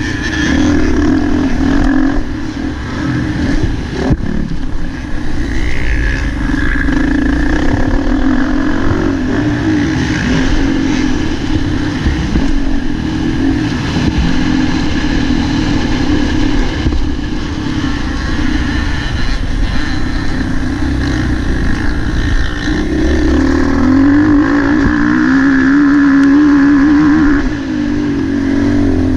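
Motocross bike's engine running hard on a dirt track, heard from the bike itself, its pitch rising and falling as the throttle is opened and closed through corners and jumps. The revving is loudest near the end, with a single sharp knock about four seconds in.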